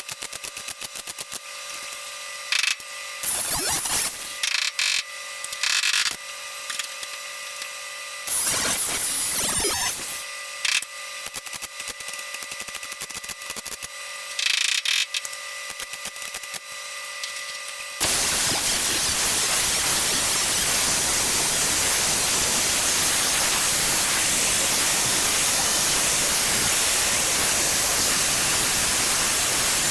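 Welder laying short tack welds on sheet-metal patch panels: four crackling bursts of half a second to two seconds over a fast fine ticking and a steady hum. About eighteen seconds in, a loud, even hiss takes over and runs unbroken.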